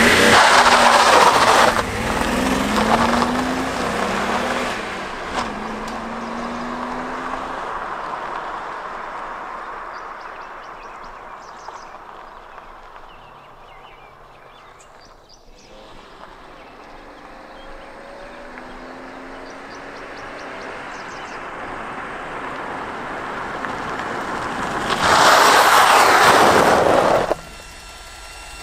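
A 1978 Datsun 280Z's inline-six pulls away hard on gravel, tyres crunching, its pitch climbing and stepping up several times through the gears before fading into the distance. A car then approaches, engine revving and climbing again, and passes loud and close before the sound cuts off sharply near the end.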